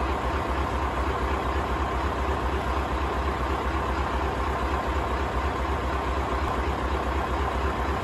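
Scania LBS141 truck's 14-litre diesel V8 idling steadily: a deep, even rumble that does not change.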